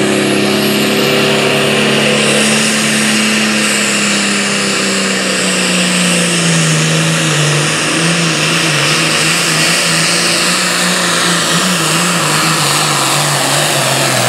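John Deere super farm pulling tractor's turbocharged diesel engine running at full throttle while it pulls the weight sled. Its note sinks slowly through the run as the load builds.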